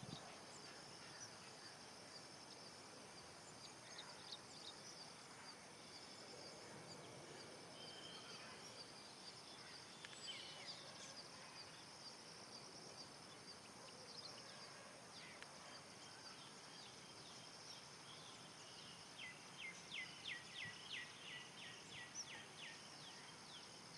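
Faint bee-eater calls over a steady high hiss: scattered chirps, then near the end a quick run of about a dozen short falling notes.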